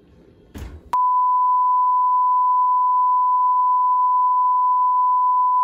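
A short thump as the oven door shuts. Then, about a second in, a loud, steady beep at one unchanging pitch begins: the test tone played over television colour bars, added as an edited transition.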